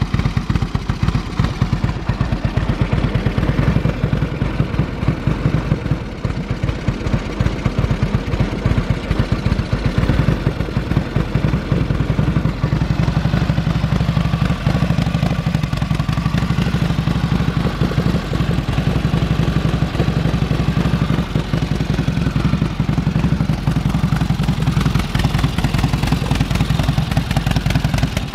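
1946 Indian Chief's flathead V-twin running at a high idle just after a cold start. It is still warming up, and will idle down as it warms.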